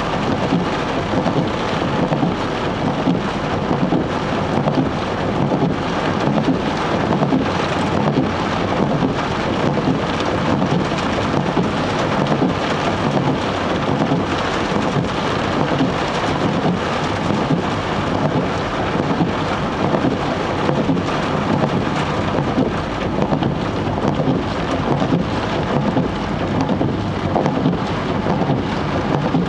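Heavy rain drumming on a moving car's roof and windscreen, heard from inside the cabin: a loud, dense, steady patter that does not let up.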